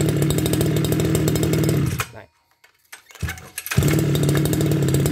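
Kioritz RM311 brush cutter's 31cc two-stroke engine running steadily, then cutting out suddenly about two seconds in. After about a second of near silence, a pull on its recoil starter brings it back, and it catches and runs steadily again.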